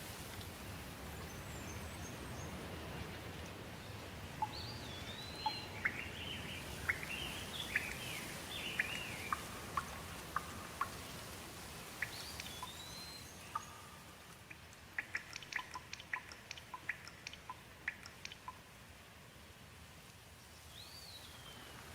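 Steady rain hiss with birds calling over it: a short whistled note that rises and falls comes three times about eight seconds apart, a flurry of chirps follows the first, and a quick run of sharp ticks comes in the second half.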